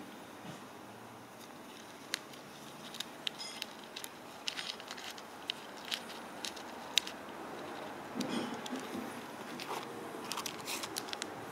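Small plastic zip-lock bags of opal rubs being handled: the plastic crinkles and the stones click against each other in scattered sharp ticks, with a softer rustle about eight seconds in.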